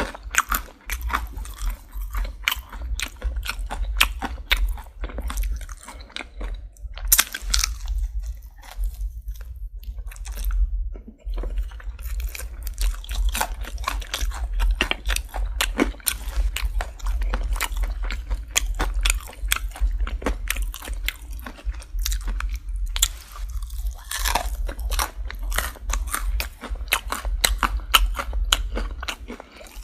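Close-miked chewing and crunching of crispy fried chicken, a dense, irregular run of crackly crunches from the breaded crust, over a steady low hum.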